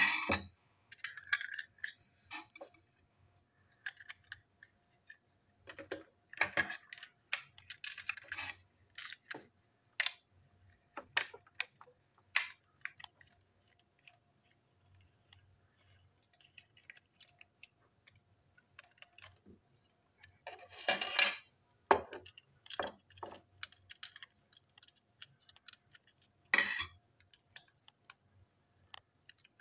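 Plastic toy steam locomotive being taken apart with a small screwdriver: irregular clicks, taps and rattles of plastic parts and the screwdriver against the body and table, with a louder burst of rattling about 21 seconds in.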